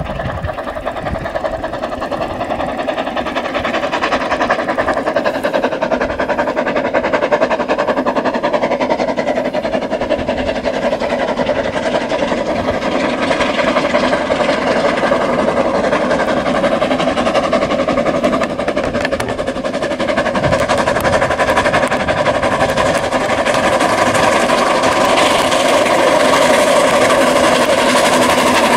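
Narrow-gauge steam locomotive hauling a train of coaches, running steadily and growing louder as it draws near and passes close.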